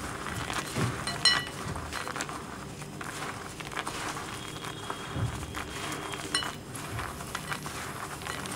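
Raw peanuts being mixed by hand with gram flour, rice flour and spice powders in a bowl: a continuous gritty rustle with small clicks as the peanuts shift and knock against the bowl, and a sharp clink about a second in.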